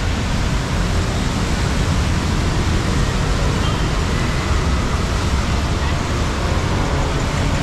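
Steady street noise of traffic on a rain-wet road: a constant hiss of tyres on wet asphalt over a low rumble of engines.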